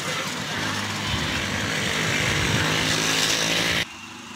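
A small engine running steadily, with a steady rushing hiss beneath it; both cut off abruptly near the end.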